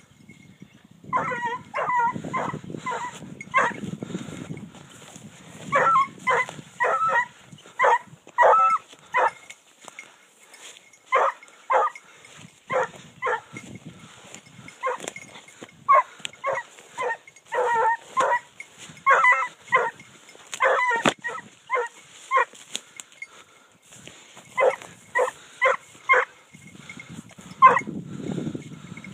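Trailing hound giving tongue on the scent of wild boar: short, repeated baying barks in clusters of three to six, with pauses of a second or two between the clusters.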